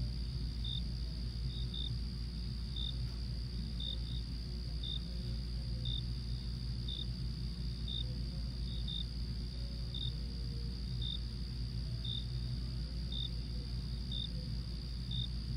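Night-time insect ambience: short high chirps about once a second, sometimes in pairs, over a steady high-pitched insect drone and a low hum.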